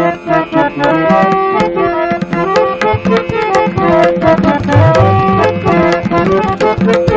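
Harmonium playing a melody of held reed notes, accompanied by quick, frequent drum strokes in Indian classical style.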